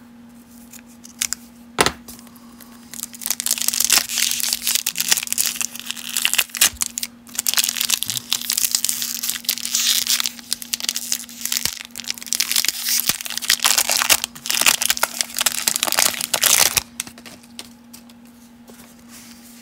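Cellophane wrapper of a 1992 Topps baseball card cello pack crinkling and tearing as it is ripped open by hand, for about fourteen seconds. A single sharp click comes about two seconds in.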